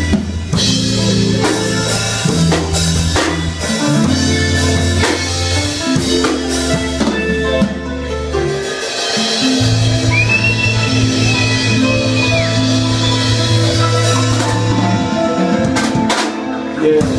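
Live reggae band playing an instrumental passage: electric bass line, electric guitar and drum kit with bass drum, snare and rimshot strokes. The bass drops out for a moment about halfway through, then comes back with long held notes.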